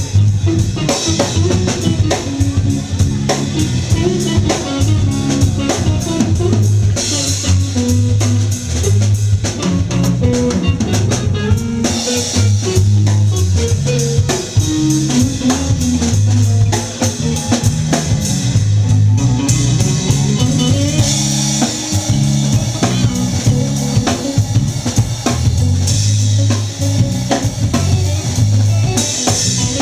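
A rock band playing live, with drum kit, electric guitar and bass guitar; the bass line is loud and the drums hit steadily.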